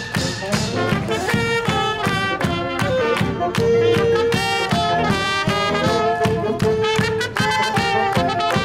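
A small live brass band, with tuba and trumpet, plays a brisk, jazzy tune, and a group of people clap along in steady time.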